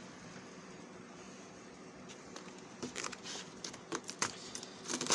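Cardboard being handled and folded: quiet at first, then a scatter of short crackles and taps from about halfway, the sharpest one at the very end.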